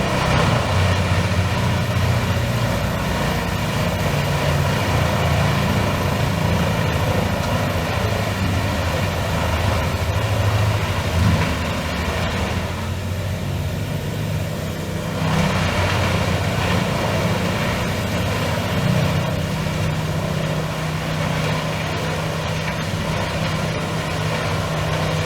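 Large diesel-powered whole-tree shredder running steadily: a deep engine drone under a broad mechanical rush, with a faint high thin whine on top. The rush dips for a couple of seconds about halfway through, then comes back.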